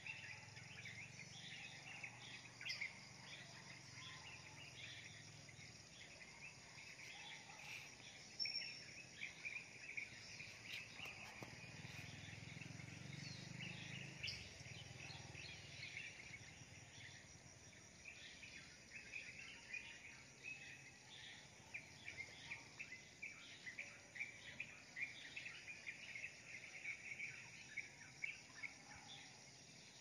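Many small birds chirping and twittering, dense short calls through the whole stretch, faint, over a steady high insect buzz; a low rumble rises twice, near the start and about halfway through.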